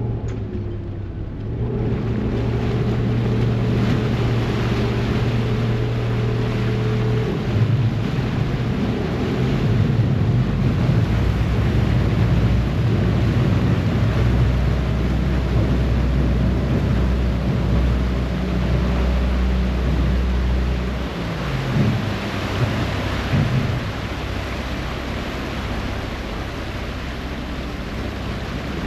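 Harbour ferry's engines running under way, with propeller wash churning and wind buffeting the microphone. The engine note changes about seven seconds in, and a deeper drone holds until about two-thirds of the way through before easing off.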